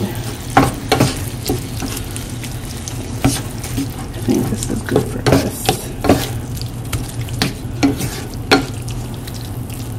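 Ground turkey and diced tomatoes sizzling in a nonstick frying pan while a wooden spatula stirs and scrapes through them, giving irregular scrapes and clicks over a steady sizzle. A steady low hum runs underneath.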